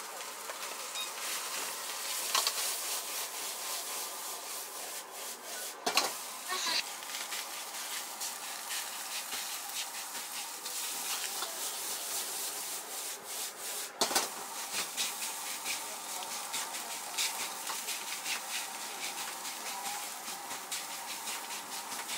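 Egg fried rice being stir-fried in a wok: a steel ladle scraping and turning the rice against the wok, with steady sizzling and a rasp of metal on metal. Two sharp knocks come about six and fourteen seconds in.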